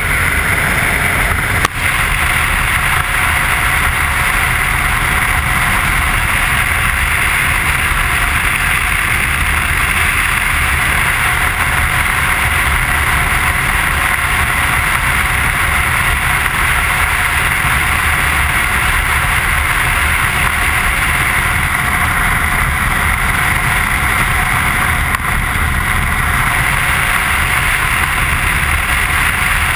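Motorcycle cruising at steady speed on the open road: constant wind rush on the bike-mounted camera's microphone, with engine and road noise underneath. A brief knock about two seconds in.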